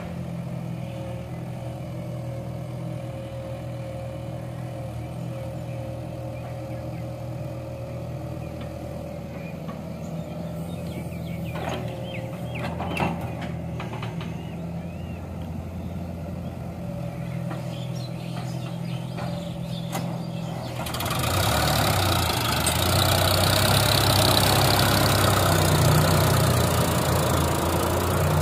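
Diesel engines running steadily: the Sonalika tractor's three-cylinder diesel idling beside a working excavator, with a few knocks as a bucket of soil is dropped into the trolley. About 21 seconds in the engine sound becomes louder and noisier as the tractor works with its fully loaded trolley.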